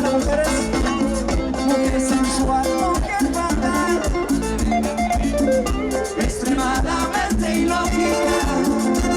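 Live Latin tropical band music: an instrumental passage with a steady percussion beat, maracas and pitched instrument lines.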